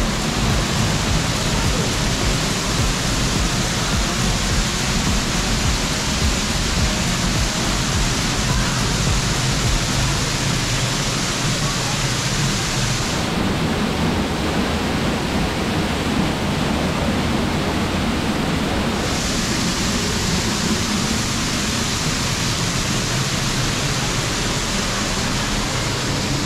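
Waterfall pouring right beside the microphone: a loud, steady rush of falling water splashing onto rock, heard from behind the curtain of water.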